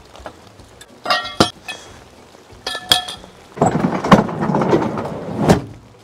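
Metal bar handled against the steel body of a Unimog camper: two bursts of clanking with a ringing metallic knock, then a rattling scrape lasting about two seconds that ends in one hard thunk.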